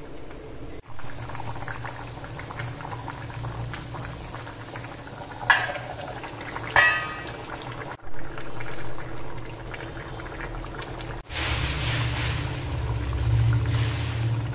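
Fish curry bubbling at a boil in a kadai on a gas burner. Two sharp clinks come about five and a half and seven seconds in.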